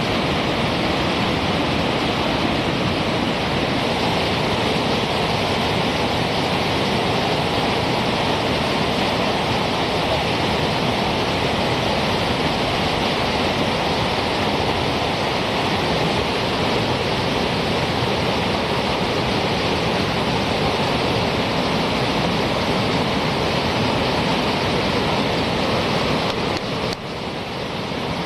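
Whitewater rapids rushing over boulders in a steady, even roar, briefly softer about a second before the end.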